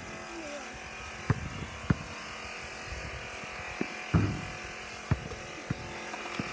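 A basketball bouncing on a paved driveway: about seven short, sharp thuds at uneven intervals, the loudest a little after four seconds in. A steady buzz runs underneath.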